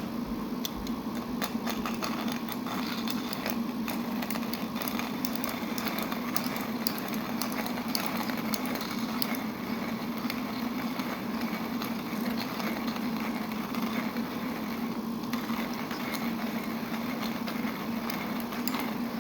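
Houselog manual coffee grinder's ceramic conical burrs crushing whole coffee beans as the handle is cranked. It makes a steady grinding rumble under a dense crackle of beans breaking up. The crackle thins out about halfway through.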